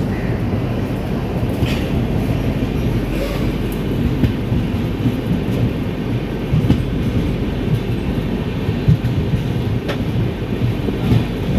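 Passenger express train moving along a station platform: a steady low rumble with a few clanks from the wheels and coaches.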